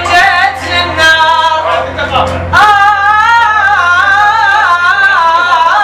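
A male voice singing an Iraqi mawwal: short ornamented phrases, then from about halfway in one long held note that wavers up and down.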